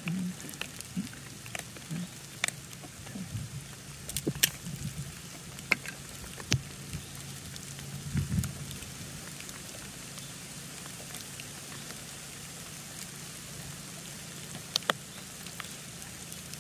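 Scandi-ground carving knife biting into a green stick, cutting notches for a beaver-chew cut: a dozen or so short sharp snicks spread over the first half, then two close together near the end, over a steady hiss.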